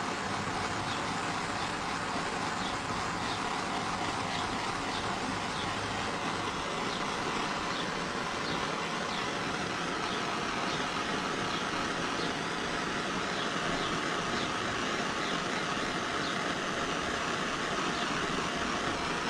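Gas torch flame hissing steadily as it heats heat-shrink butt connectors on the wires, shrinking them until their glue melts.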